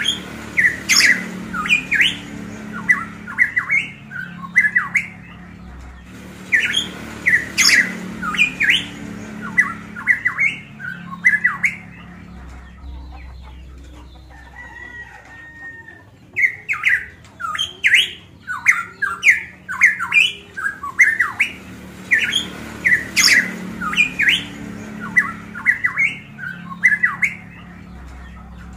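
A caged pitohui (cucak emas papua) calling loudly: quick runs of short, sharp rising and falling notes in phrases several seconds long, with a quieter pause about halfway through.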